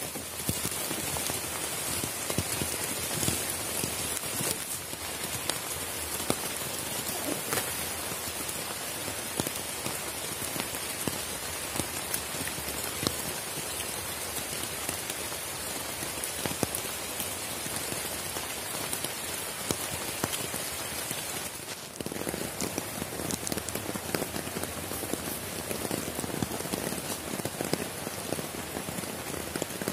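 Steady rain falling on the hammock's tarp overhead, heard from underneath: a constant hiss with many separate drop hits.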